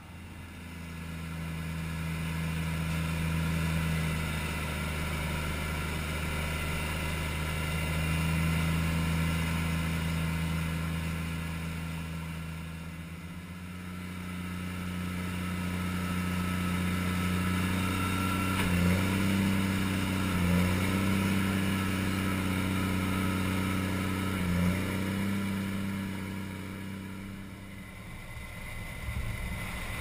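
Heavy farm diesel engines of a grain-cart tractor and a Case IH 8120 combine harvester running steadily under load while the combine harvests wheat and unloads on the go. The drone swells and eases, and its pitch steps slightly higher about halfway through, with a few short dips after that.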